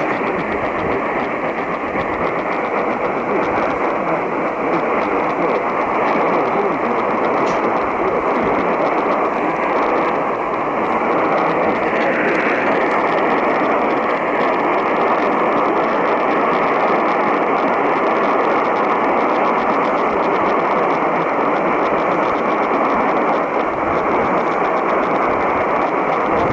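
Radio static: a steady, band-limited hiss from a radio receiver carrying no program audio, with a faint wavering whistle running through it that dips briefly about halfway through.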